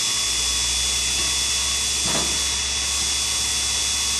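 Sherline CNC cam grinder's small motors running with a steady high-pitched whine and hiss. A low hum comes in just after the start, and there is a single brief knock about two seconds in.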